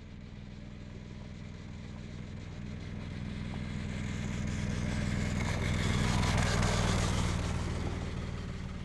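Harbor Freight Predator 212cc single-cylinder four-stroke engine driving a motorcycle at a steady pitch as the bike rides up and passes by. It grows louder until about six and a half seconds in, then fades as the bike moves away.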